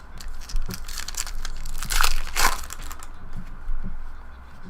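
Crinkling of a trading-card pack wrapper being handled and torn open, a run of irregular crackles that gets loudest about two seconds in.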